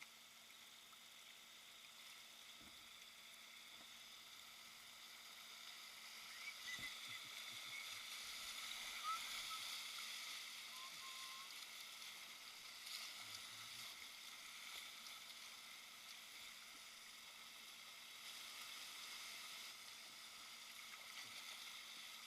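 Faint, steady rushing of river water, swelling slightly in the middle, with a couple of tiny chirps.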